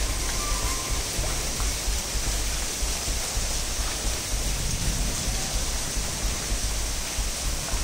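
Steady rush of flowing floodwater, an even hiss with a low uneven rumble underneath.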